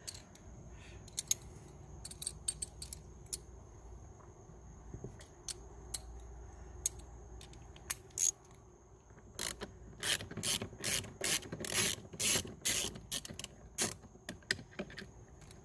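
A T20 Torx screw being backed out of a car's interior door-handle trim with a hand driver: scattered clicks at first, then a run of about three clicks a second that ends near the end.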